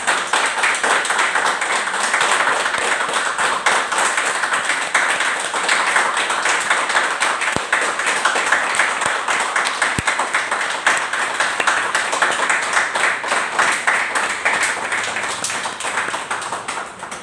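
A small group of people clapping together in steady, continuous applause, which tapers off near the end.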